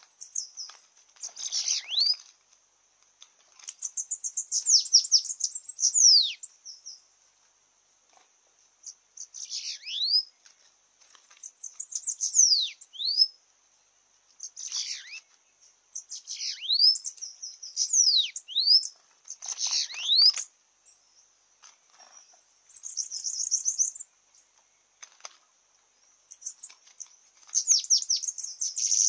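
Bananaquits singing: short, high, buzzy songs with quick downward-sweeping notes, one phrase every two seconds or so.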